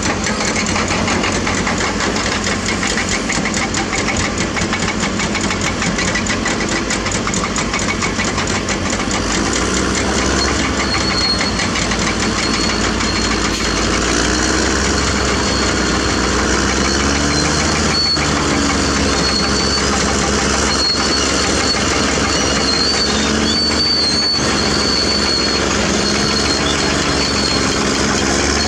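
Diesel engine of a Caterpillar D6R crawler bulldozer running steadily with a rapid, even chugging. A faint high whistle comes and goes from about a third of the way in.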